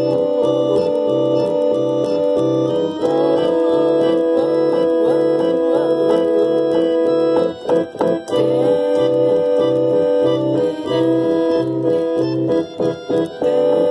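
Music with sustained organ-like keyboard chords over a steady pulsing bass, briefly dropping out a few times near the middle and again near the end.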